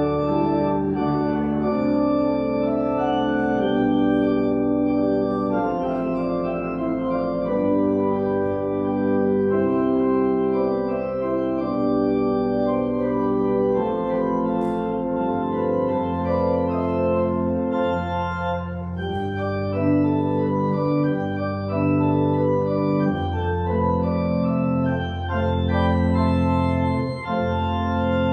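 Church organ playing slow, sustained chords that change every second or so. Deep bass notes come in about halfway through.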